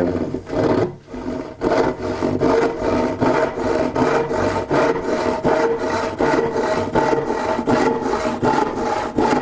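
A 10-point Disston crosscut hand saw cutting across a pine board, rasping in quick, even strokes, with a short pause about a second in.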